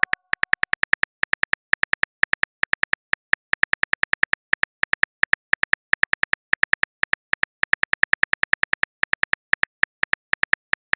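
Chat-app keyboard typing sound effect: a rapid, uneven run of short high clicks, about seven a second, one for each letter as a message is typed out.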